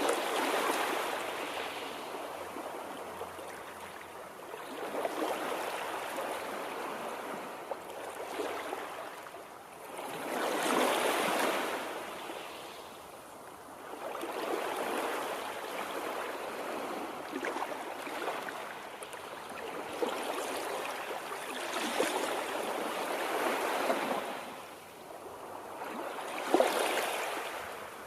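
Running water, a steady rushing that swells and eases every few seconds, with one brief sharp splash or knock near the end.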